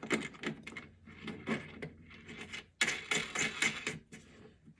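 Small metal clicks and rattles of a washer and nut being handled and fitted onto the threaded end of a harp pickup, with a quick cluster of clinks a little under three seconds in.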